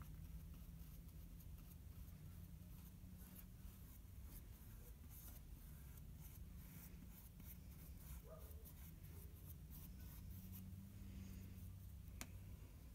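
Faint scratchy strokes of a small paintbrush stippling and brushing lightweight spackling compound on a model railroad crossing, over a low steady hum, with one sharp click near the end.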